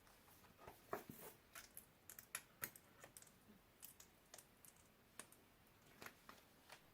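Faint, irregular sticky clicks and small crackles of slime being handled, poked and pulled.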